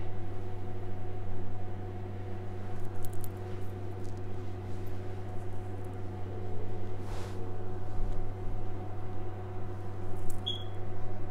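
Steady low hum with faint rustling and a few small clicks, as makeup products and brushes are handled.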